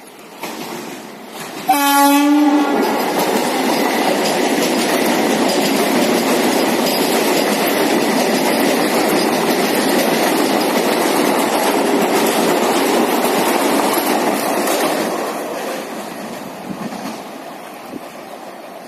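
Vande Bharat Express train set sounds one short horn blast about two seconds in, then passes close by with a loud, steady rumble and clatter of wheels on rail that fades away over the last few seconds.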